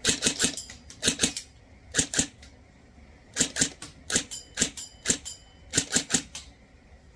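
Cyma Platinum Noveske N4 airsoft electric rifle (AEG) firing in short bursts of two to four shots each, about eight bursts in all, as a sharp mechanical clatter with brief pauses in between.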